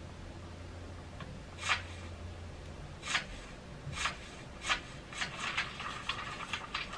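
Paper pages of a ring-binder planner being turned: four separate swishes, then a quicker run of rustling from about five seconds in.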